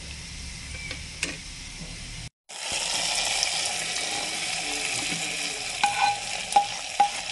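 Cashews and raisins sizzling softly in hot ghee; after a short gap, a louder sizzle as the hot ghee and fried nuts meet the semiya payasam and are stirred in, with a few metal clinks of a spoon against the steel cooker near the end.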